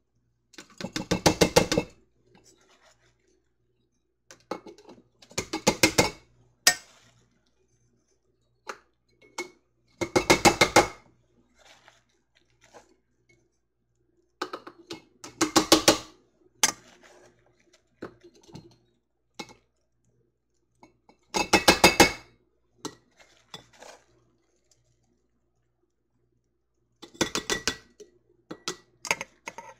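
A measuring cup clinking against glass quart canning jars as chopped peppers are tipped and tapped into each jar. Six bursts of rapid clinking and rattling, each about a second long and about five seconds apart, with light clicks between them.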